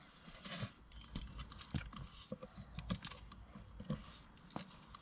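Faint, irregular clicks and creaks of a Quicksilver hand gear-lube pump being worked. It is forcing thin engine oil through an outboard's lower-unit gearbox to flush out creamy, water-contaminated gear oil.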